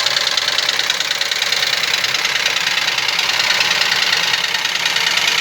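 Ford Ka three-cylinder engine running with a fast, steady metallic ticking. This 'tec tec' engine noise comes with the oil-pressure light flickering and is blamed on timing-belt debris clogging the oil pump pickup.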